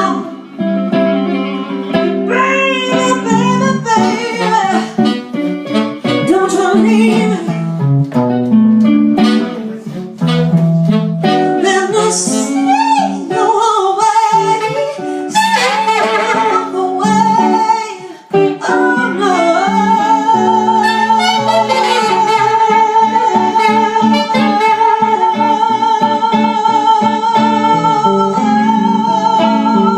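Slow soul-blues ballad with guitar accompaniment and melodic lines that bend in pitch; from about twenty seconds in, a long held note with vibrato.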